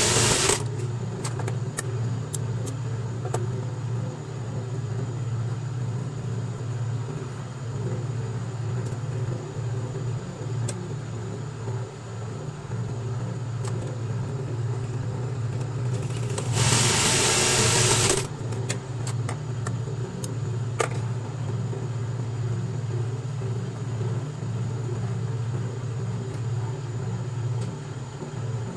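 Industrial buttonhole sewing machine, its motor humming steadily, with scattered light clicks and one loud burst of the machine running, about a second and a half long, about 17 seconds in.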